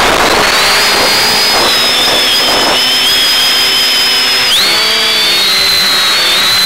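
X550AIOP quadcopter's electric motors and propellers whining in flight. Several high tones wander in pitch as the throttle changes, dipping sharply and springing back up about four and a half seconds in. A steady hiss lies underneath, heard through the FPV downlink's audio.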